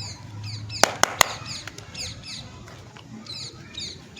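A small bird chirping over and over in quick, high, falling chirps, with three sharp clicks in quick succession about a second in.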